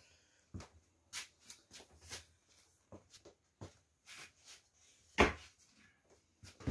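Scattered light knocks and clicks of someone moving about and handling things, with one louder knock about five seconds in.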